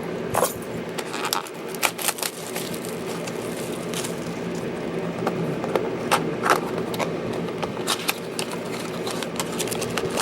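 Plastic and cardboard trading-card box packaging being pried open and crinkled by hand: irregular crackling and sharp clicks, a few louder snaps near the start and again about six seconds in.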